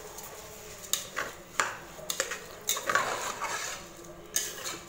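Slotted metal spatula scraping and clinking against the inside of a pressure cooker as soaked raw rice is stirred into the ghee and oil. The strokes come irregularly, several in quick succession, busiest around the middle.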